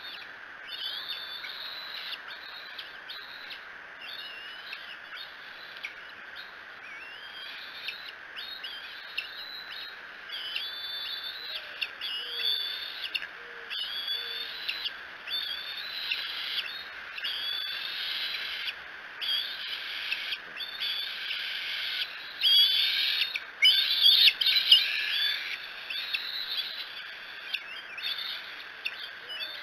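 Young bald eagles in the nest giving repeated high, squealing chirps that grow more frequent and loudest about three quarters of the way through: food-begging calls as a parent lands with a fish. A steady high hum runs underneath.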